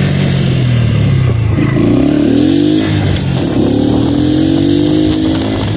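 Honda Pop 110i's small single-cylinder four-stroke engine running under way. Its note sags for about the first second and a half, then climbs, breaks briefly about three seconds in as a gear is changed, and climbs again.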